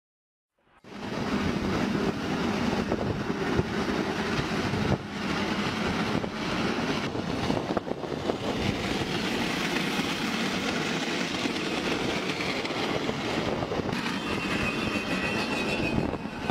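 Metal dragging and scraping along the road under a moving vehicle, throwing sparks: a loud continuous scraping rush that starts suddenly about a second in, with a thin high squeal joining near the end.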